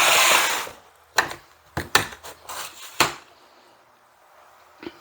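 A short rushing noise that stops within the first second, then a run of about six sharp clicks and knocks from hand tools and the blower's plastic housing being handled as the leaf blower is opened up.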